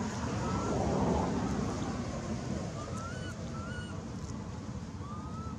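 Steady outdoor background rumble that swells about a second in, with four short chirped calls that each rise and then fall in pitch.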